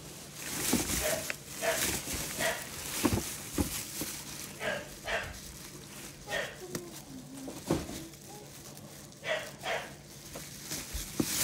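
Thin plastic shopping bag crinkling and rustling as a hand rummages through it and pulls it open. Short pitched dog whines come through every second or so.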